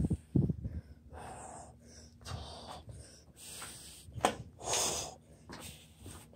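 A man breathing heavily, panting in and out about once a second. There are a few thumps near the start and a sharp click about four seconds in.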